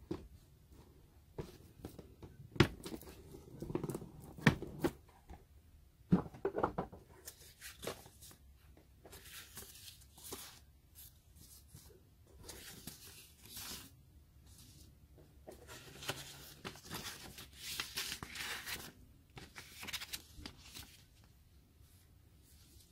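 Model locomotive's card box being handled and opened: a few sharp knocks and scrapes in the first several seconds, then paper instruction sheets rustling repeatedly as they are pulled out and handled.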